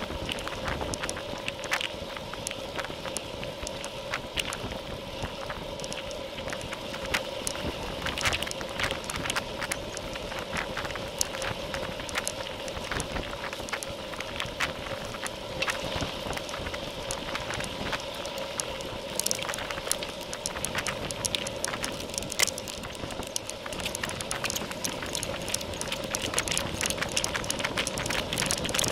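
Bicycle riding on a paved path, heard through a handlebar-mounted Cycliq Fly12 CE camera: steady tyre and wind rush with a constant hum, peppered with frequent small clicks and rattles from road vibration.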